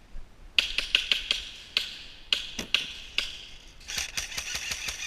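Airsoft guns firing: a string of sharp clacks, spaced out at first, then a quicker run of shots near the end.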